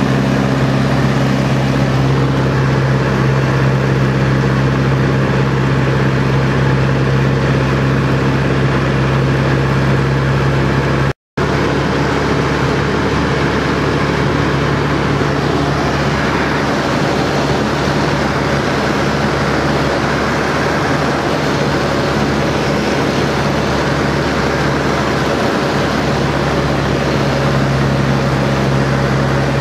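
de Havilland Chipmunk's Gipsy Major four-cylinder inline piston engine running steadily in flight, heard from inside the cockpit as an even drone. The sound cuts out completely for a moment about eleven seconds in.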